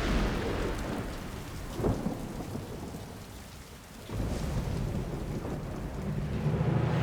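Thunderstorm sound effect: steady heavy rain under rolling thunder, with a sharp crack about two seconds in and a fresh deep rumble of thunder building from about four seconds.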